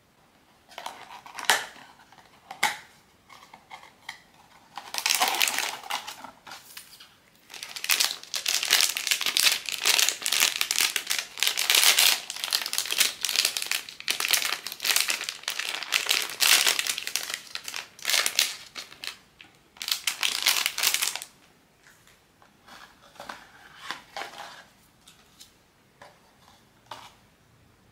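Plastic blind-box packaging crinkling and rustling as it is handled and unwrapped by hand. It runs in long dense stretches from about five to twenty-one seconds in, with a few sharp clicks before and softer, scattered rustles after.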